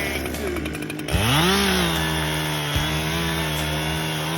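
Echo 7310 two-stroke chainsaw engine revving up sharply about a second in and then holding steady at full throttle.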